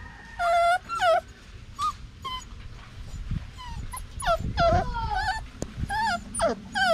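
Puppies whimpering and yipping: many short, high-pitched cries that bend up and down in pitch, about one or two a second.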